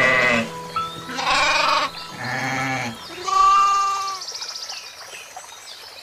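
Goats bleating: about four wavering calls, each under a second long, in quick succession, fading out after about four seconds.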